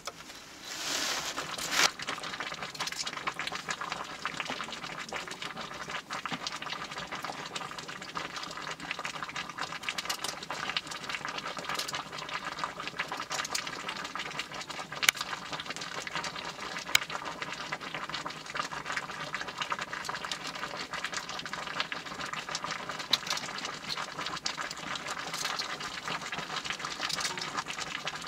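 Steady rasping of potatoes being rubbed by hand over a homemade punched-tin grater, with scattered sharp clicks.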